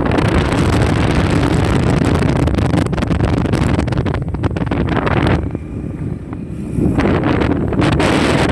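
Heavy wind buffeting on the microphone and road noise from a moving vehicle. The rush eases for a second or so about two-thirds of the way through, then comes back.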